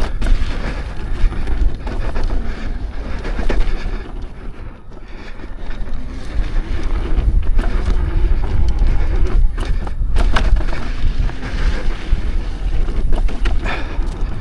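Wind buffeting the microphone and tyre noise as an offroad electric unicycle is ridden fast along a rough dirt trail, with scattered knocks and rattles over the bumps. The rush eases briefly about four seconds in, then builds again.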